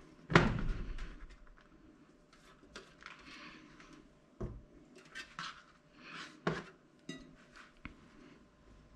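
A stainless steel box grater knocked down onto a plastic cutting board, sharp and ringing, about a third of a second in. Then short scraping strokes of cheese on the grater and a few lighter knocks as the grater and cheese block are handled.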